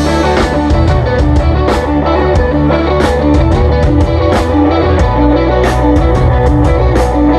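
Live rock band playing amplified electric guitars, bass guitar and a drum kit, with a steady beat and repeated cymbal crashes.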